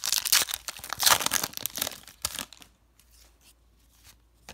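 A trading-card pack's foil wrapper is torn open and crinkled, a dense crackling that lasts about two and a half seconds. After that come a few faint clicks as the cards are handled.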